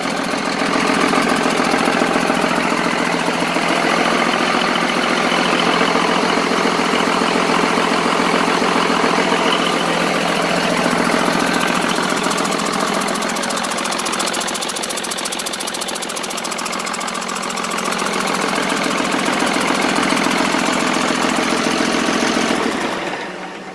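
Cummins 6BT 5.9-litre inline-six turbodiesel with a VP44 injection pump running steadily, warm after about twenty minutes of running, with its cooling fan turning.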